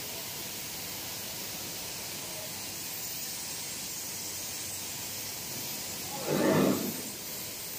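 Steady hiss of machinery running on a biscuit production line, with one short, louder burst of sound about six seconds in.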